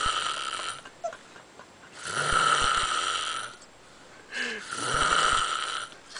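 A man snoring in his sleep: a snore fades out at the start, then two long rasping snores follow about two seconds apart, with quieter breathing gaps between.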